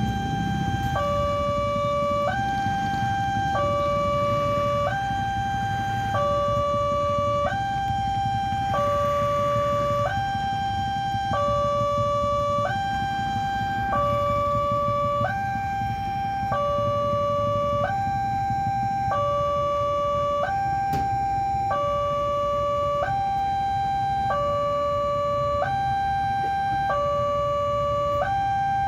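A railway level crossing's electronic warning alarm sounds a steady two-tone hi-lo signal, switching pitch about once a second, warning that a train is approaching. Under it runs a low, even rumble.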